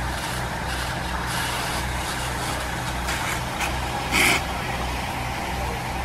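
Fire engine's diesel engine running its pump to supply a deck gun, a steady low drone. A short loud burst of hiss about four seconds in.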